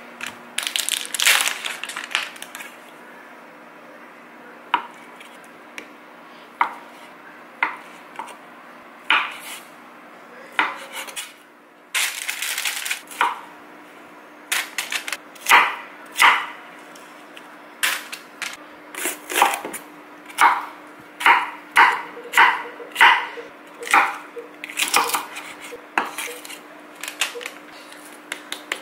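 Cutlery and dishes clinking: a string of sharp taps and clinks of utensils against plates and bowls, with a longer scrape about twelve seconds in, over a faint steady hum.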